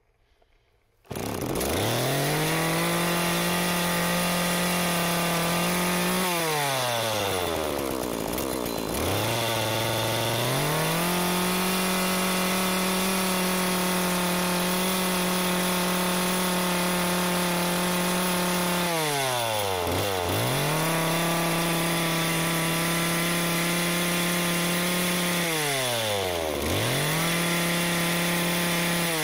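McCulloch Eager Beaver Super 2318AV 38 cc two-stroke chainsaw engine firing up about a second in, then revved to full throttle and let fall back toward idle between runs, four high runs in all. The bar and chain are off, so the engine revs unloaded.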